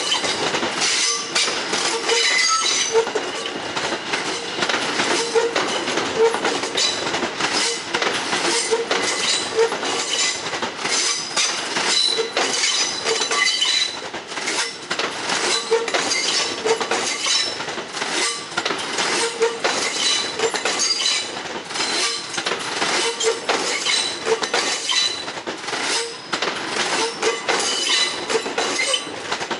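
An R160B subway train built by Alstom rolls slowly past while arriving at the station: a steady run of wheel clicks over the rail joints, with short high wheel squeals now and then.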